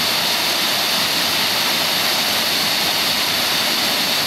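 Small waterfall pouring steadily into a pool, a constant rush of falling water.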